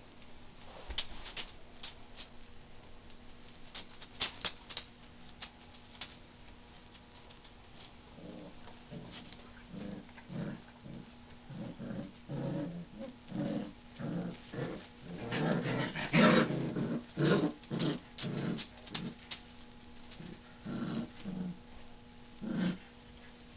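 Five-week-old puppies play-fighting, giving many short growls in quick succession from about eight seconds in, loudest near the middle. A few sharp clicks come before the growling starts.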